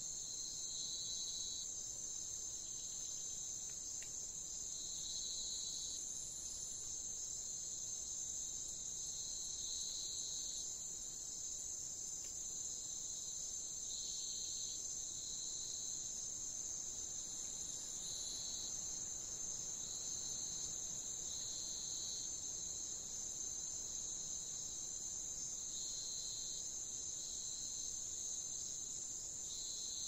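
Insect chorus: a steady, high-pitched chirring, with a second, lower trill coming in short bursts every few seconds.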